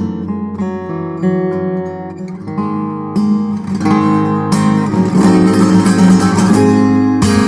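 Solo fingerstyle acoustic guitar playing picked melody notes over a bass line, building about three seconds in to louder strummed chords with percussive string slaps.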